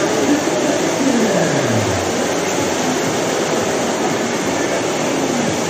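Whitewater rushing steadily down an artificial canoe slalom channel.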